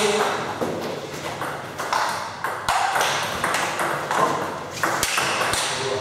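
Table tennis balls clicking off tables and bats: a string of sharp, irregularly spaced clicks, several overlapping at times, as from more than one table in play.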